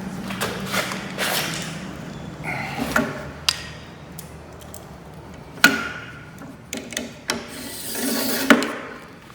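Hands working with tools and a plexiglass sheet on a workbench while it is measured and marked: a few sharp clicks and knocks with short scraping and rustling sounds between them.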